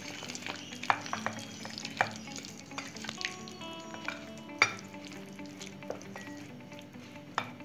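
Red spatula stirring a thick batter of ground rice, egg, grated vegetables and flour in a glass bowl, with sharp taps each time the spatula knocks against the glass, the loudest about four and a half seconds in.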